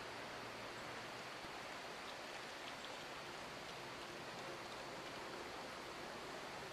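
Steady faint hiss of outdoor background noise, even throughout with no distinct events.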